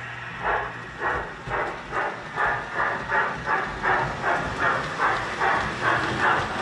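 Lionel O gauge General 4-4-0 steam locomotive chuffing in an even rhythm of about two to three chuffs a second, getting a little louder as it approaches, over the low rumble of wheels on the track.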